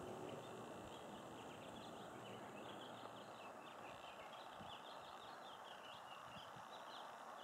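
Faint outdoor background of small birds chirping rapidly and continuously, over a low, even hiss.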